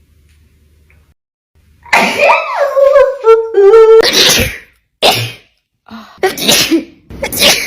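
A woman's drawn-out, wavering "ah… ah…" build-up, followed by a run of several sharp sneezes in quick succession, about a second apart.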